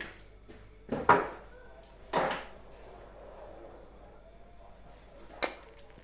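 Kitchenware being handled: a loud knock about a second in, a longer clatter about two seconds in, and a sharp click near the end.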